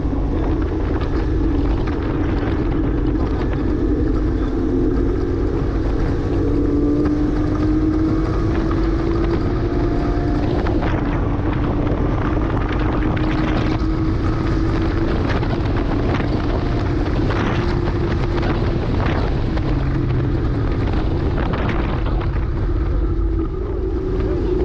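2009 Porsche Cayman S flat-six engine pulling hard under load on track. The engine note climbs slowly over the first ten seconds, then holds steady, with a brief dip near the end.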